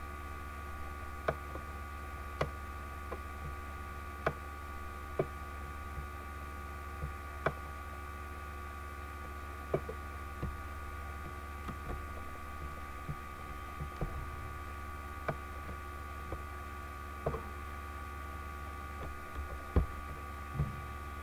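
Steady electrical hum on the recording, with computer mouse clicks coming irregularly about once a second.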